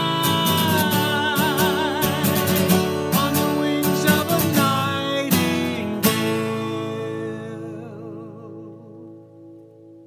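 A man sings a long held final note with vibrato over a strummed acoustic guitar. A last chord about six seconds in rings out and fades away, ending the song.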